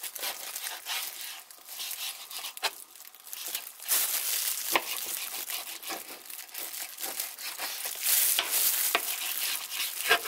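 Disposable plastic glove crinkling against raw seasoned fajita beef while a dull kitchen knife saws through the meat on a wooden cutting board, with a few clicks where the blade meets the board.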